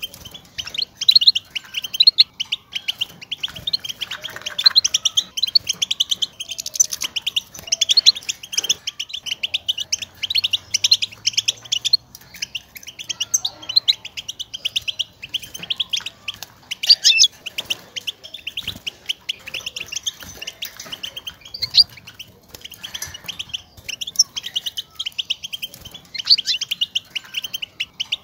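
European goldfinch giving rapid, continuous twittering call notes. These are the contact calls goldfinches use to call to one another and signal where they are.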